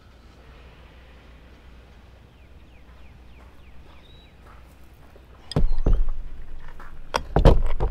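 Faint bird chirps over a low steady rumble, then from about two-thirds of the way in a run of loud, sharp knocks and clunks as a Minn Kota Ulterra bow-mount trolling motor is set down onto its mount on a fibreglass boat bow.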